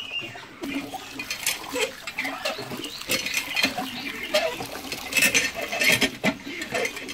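Rice being washed by hand in a woven plastic sack under a hand-pump spout: water splashing while hands rub and squeeze the wet grains, the sack rustling in a dense run of short scratchy crackles.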